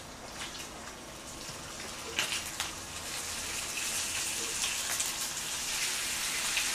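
Pork belly (samgyeopsal) frying on a hot pan: a steady, high sizzling hiss with a few sharp crackles about two seconds in, growing louder over the second half.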